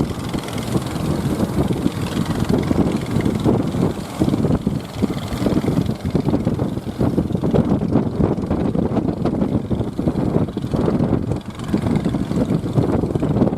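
Continuous rough rumble of wind buffeting the microphone, mixed with the running engines of sekoci fishing boats.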